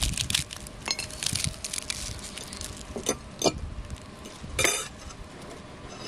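Crisp, flaky layered chudu pastry crackling and crunching as it is torn in two by hand, a dense run of crackles followed by a few separate louder cracks.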